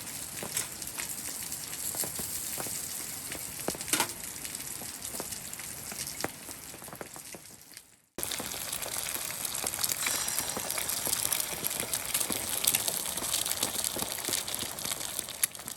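Wood campfire crackling and hissing, with many sharp pops. The sound breaks off suddenly about eight seconds in and resumes at once with the same crackle.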